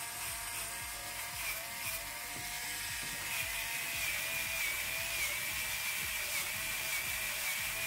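Electric nail drill whining steadily as it files down an acrylic nail, its pitch wavering slightly under the pressure of the bit; a second, higher whine joins about three seconds in.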